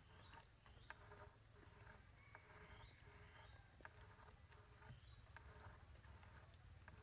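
Near silence: a faint, steady high-pitched insect drone with low rumble underneath and a few faint clicks.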